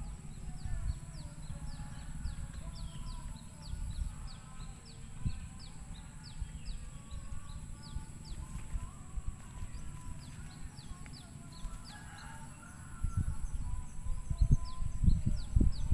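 Birds chirping rapidly in the background, several short high falling calls a second, with chickens calling now and then. Under them, low rubbing and knocking sounds that grow louder in the last few seconds.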